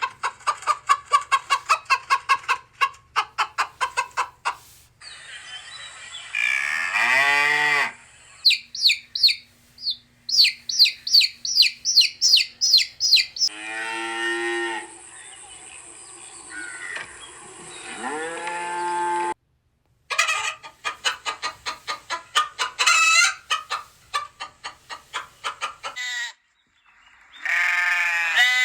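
Chickens clucking in fast runs of short calls, alternating with a cow mooing in long, low calls, as a series of separate clips with brief silent breaks between them.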